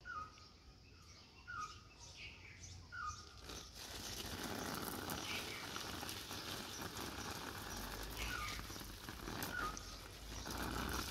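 Urine stream splashing steadily onto broad leaves and the ground, starting about three and a half seconds in. Before it starts, and now and then over it, a bird gives short chirps.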